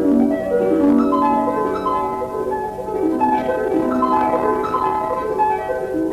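Instrumental music: a flowing stream of short overlapping notes, several starting each second, with no singing.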